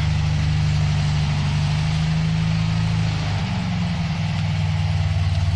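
Volkswagen air-cooled flat-four engine of a kit car idling steadily, its note shifting slightly a little past halfway through.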